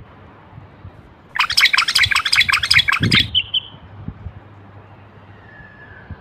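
Common bulbul calling: a burst of rapid, harsh chattering notes for about two seconds, ending in a short clear whistled note. A faint falling whistle follows near the end.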